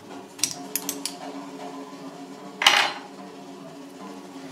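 Small metal parts of a lever espresso machine's group head clinking as they are handled: a quick run of light clicks in the first second, then one louder metal clank a little past halfway.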